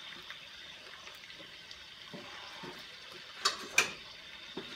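Metal cooking irons set down on a bench: two sharp metallic clinks, a fraction of a second apart, about three and a half seconds in, over a faint steady hiss.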